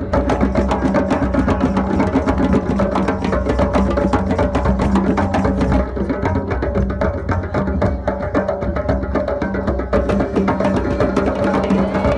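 Rhythmic music of fast hand drumming, dense quick strikes throughout over a steady low drone.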